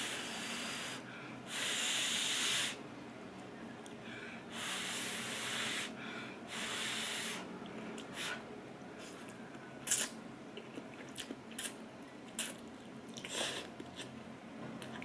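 Instant ramyeon being slurped, four long slurps of about a second each, followed by a run of short mouth clicks and smacks of chewing.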